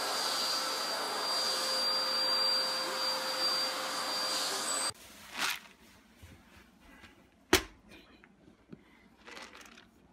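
Vacuum cleaner running steadily with a thin high whine, cutting off suddenly about five seconds in. A much quieter stretch follows with a few sharp knocks, the loudest about two and a half seconds after the cutoff.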